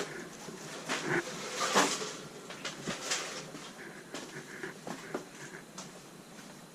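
Footsteps crunching over litter and debris on a hard floor: irregular knocks and rustles about every half second, loudest a second or two in.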